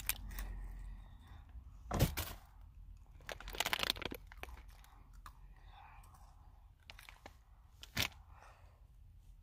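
Pocky chocolate-coated biscuit sticks being bitten and chewed close to the microphone: a few sharp crunches, the loudest about two seconds in, a cluster around three and a half to four seconds, and one more near the end.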